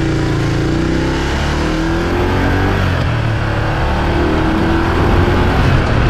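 Motorcycle engine accelerating up to highway speed, its pitch gliding as it pulls through the gears, under a loud rush of wind noise that grows as the speed builds.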